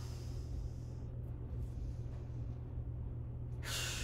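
A woman's breathing during a core exercise: a long breath lasting about a second at the start, then a sharper exhale through the mouth near the end, over a steady low hum.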